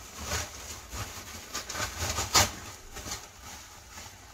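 Packaging being handled and pulled open to get a car spoiler out: a run of short, irregular rustles and scrapes, the loudest about two and a half seconds in.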